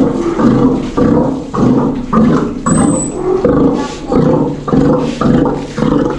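Old bull Steller sea lion roaring over and over, a throaty call about twice a second.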